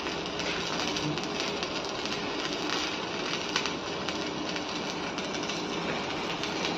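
Electric arc welding: a steady, dense crackle of the welding arc.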